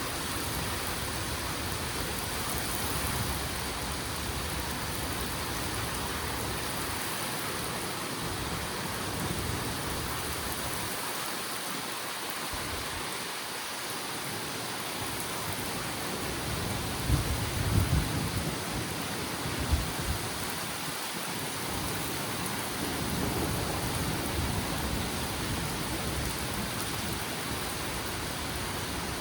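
Steady rain pouring down in a severe thunderstorm, a constant even hiss. About two-thirds of the way in, a few brief low rumbles and thumps rise above the rain.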